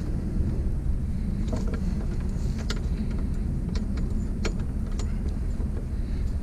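A vehicle engine idling with a steady low rumble, with a few short, light knocks and clicks as scrap is handled in the back of a pickup truck.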